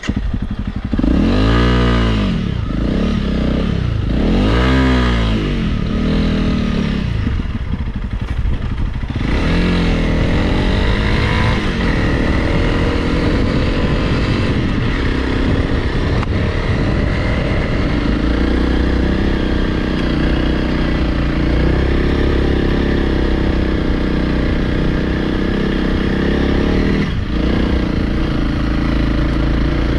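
Honda CRF Rally's single-cylinder engine revving up and down three times in the first few seconds, then running steadily under way as the motorcycle rides on.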